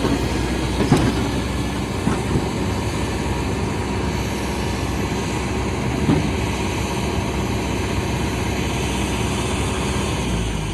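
Excavator's diesel engine running steadily, with a few sharp metallic knocks about one, two and six seconds in.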